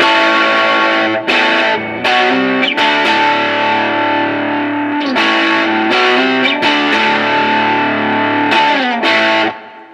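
Electric guitar (Fender American Special Stratocaster on its single-coil pickup settings) played through a Mooer Solo distortion pedal with the gain turned up, into a Bugera V22 tube amp: a heavy, high-gain distortion tone for metal or hard rock. About ten sustained chords and notes are struck in a riff, and the last one dies away near the end.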